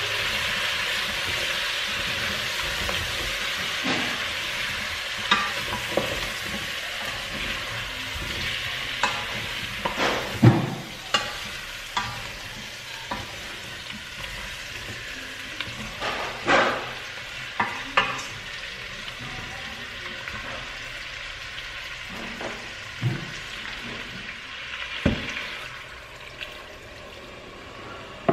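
Beef and potato pieces sizzling in a stainless steel pot while being stirred with a wooden spoon, which knocks against the pot now and then. The sizzle slowly dies down.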